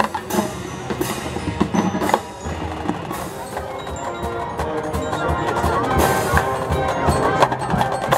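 High school marching band playing its field show: sustained wind notes with struck percussion hits and mallet-instrument notes from the front ensemble prominent.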